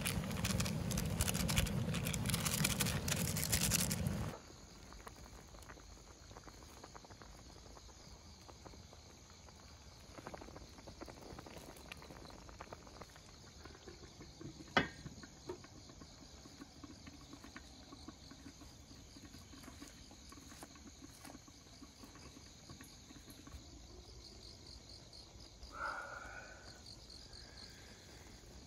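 Crickets chirping faintly in a steady high trill that turns into pulsing chirps near the end. It is preceded by a loud rushing hiss that cuts off suddenly about four seconds in. A single sharp click comes near the middle.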